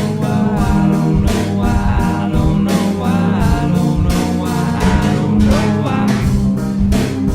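Music: a hip-hop track with a steady drum beat and a gliding sung melody over it.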